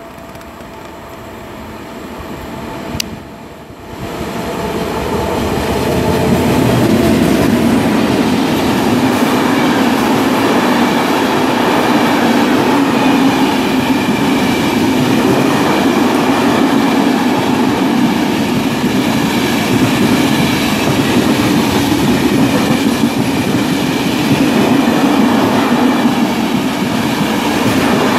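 Electric freight train of an FS E.652 locomotive and a long rake of flat wagons approaching and then rolling past close by, building over the first several seconds into a loud, steady rumble of wheels on rail. A single sharp click about three seconds in.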